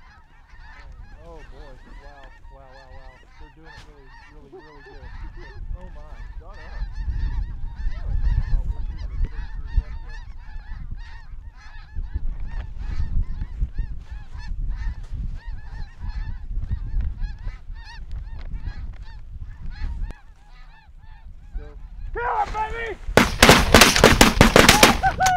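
A flock of snow geese calling overhead, many short high calls overlapping, with wind rumbling on the microphone through the middle stretch. Near the end comes a rapid volley of loud shotgun blasts.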